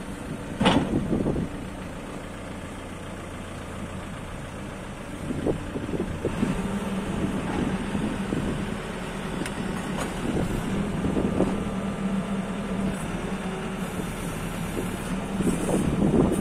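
Diesel engine of an MST M644 backhoe loader running, with a brief loud sound about a second in. From about five seconds in the engine runs louder.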